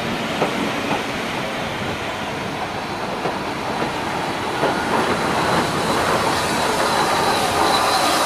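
A slow-moving train of coaches and a steam locomotive rolling past close by, wheels clicking over the rail joints. A high steady squeal comes in about halfway through and builds toward the end.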